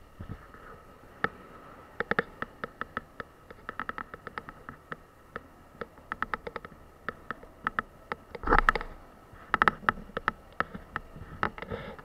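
Close handling noise from leather motorcycle gloves being pulled on: rapid small clicks, taps and rustles, with one brief louder scrape about eight and a half seconds in.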